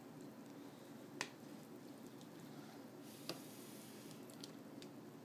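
A toddler eating Cheerios by hand in a quiet room: a few short, faint clicks and small wet mouth sounds as he chews and picks cereal from a plastic bowl. The two sharpest clicks come about a second in and a little past three seconds.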